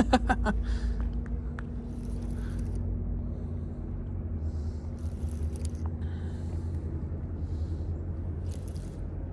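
A steady low engine hum and rumble, with a few quick clicks in the first half second.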